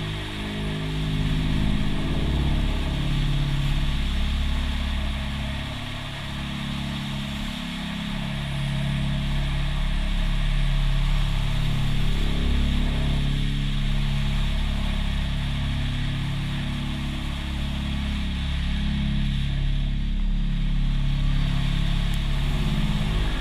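BMW K1200S inline-four engine running through an Akrapovic slip-on exhaust as the bike is ridden, its pitch stepping up and down as the rider opens and closes the throttle. A steady rush of wind noise runs under it.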